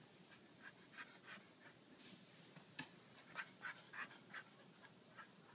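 A puppy whimpering: a series of short, high-pitched whines, loudest in a cluster around the middle.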